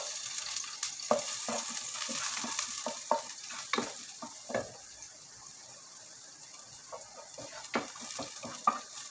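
Chopped garlic sizzling in hot oil in a nonstick pot, stirred with a wooden spatula that scrapes and taps against the pan. The sizzle is loudest in the first few seconds and dies down by about halfway.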